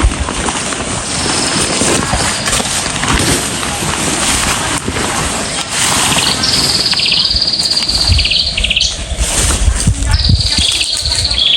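Outdoor ambience: a steady rushing noise with low rumbles. From about halfway, a high, pulsing, buzzy trill runs for about three seconds and then comes twice more near the end.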